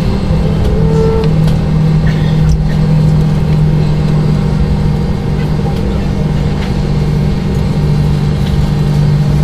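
Cabin noise inside a McDonnell Douglas MD-90 taxiing onto the runway: the steady drone of its rear-mounted IAE V2500 turbofans, with a low hum.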